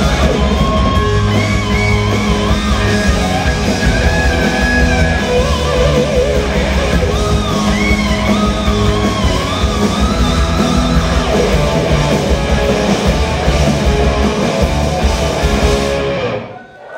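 Hard rock band playing live: distorted electric guitars through Marshall amplifiers, bass, keyboards and drums, with a wavering, pitch-bending lead line over them. The sound drops out abruptly near the end.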